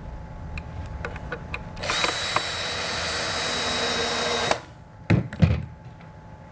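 Power drill driving a screw into the wooden roof of a bluebird box, running steadily for about two and a half seconds and then stopping abruptly. Two quick knocks follow shortly after.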